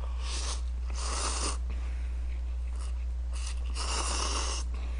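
Noodles being slurped from a paper cup in airy pulls: a short one about half a second in, a longer one around a second, and two close together near four seconds. A steady low electrical hum runs underneath.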